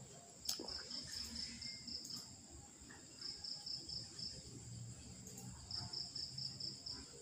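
Insects chirping faintly: three trains of rapid high pulses, about five or six a second, each lasting a second or so, with short gaps between them. A faint low hum lies underneath, and there is one short click about half a second in.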